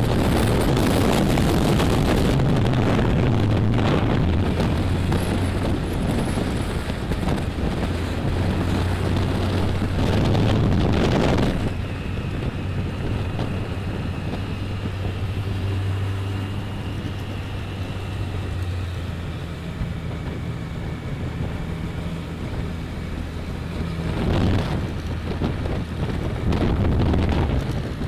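Motorcycle engine running steadily while under way, with wind rushing over the microphone. The wind noise drops away about eleven seconds in and picks up again near the end.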